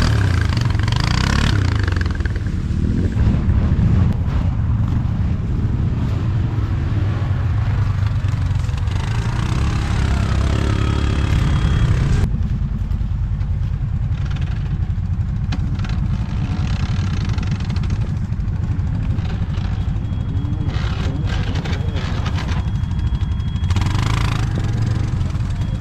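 ATV (quad bike) engine running and revving, its pitch rising and falling for the first half, then settling to a steadier, lower running sound from about halfway through.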